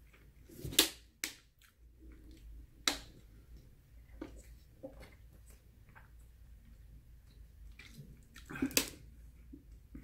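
Scattered sharp clicks and plastic crinkles as a plastic water bottle is handled and drunk from, with quiet stretches between, and a louder cluster of clicks near the end.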